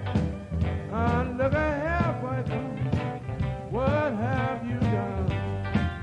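Beach music playing: an upbeat song with a steady bass beat and a lead melody line that bends up and down.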